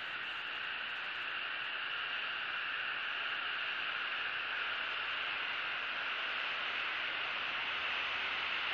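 Steady, even hiss with no distinct events: outdoor background noise picked up by the live nest-cam microphone, with no eagle call.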